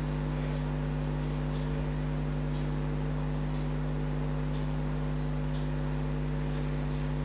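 Steady electrical mains hum, a low buzz with several steady overtones, over a faint hiss.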